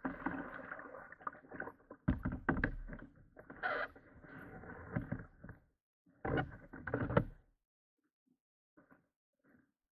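Kayak paddle clunking and scraping against a plastic kayak hull as it is laid across the boat, in two bursts of knocks over the first seven and a half seconds, then a few faint ticks.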